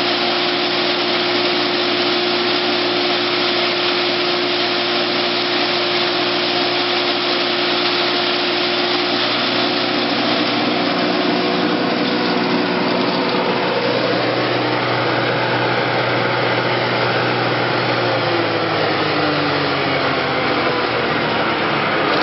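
MS-360 forage and grain chopper, a hammer mill driven by a single-phase electric motor, running with a steady whirring hum and the rush of material being chopped. Over the last few seconds its pitch falls as the rotor slows.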